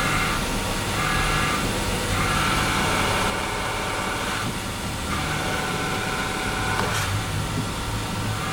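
Car engine idling while the clutch pedal is lightly pressed, with a high whine from the clutch release (throwout) bearing that comes and goes several times. The whine is the sign of a worn, noisy clutch release bearing.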